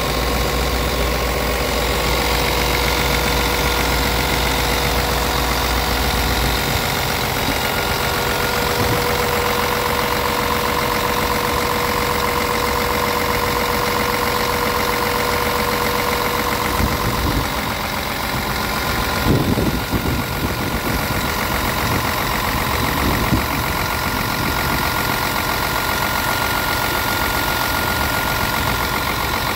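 Scania R tractor unit's inline six-cylinder diesel engine idling steadily, heard close up at the open engine bay, with two brief bumps about two-thirds of the way through.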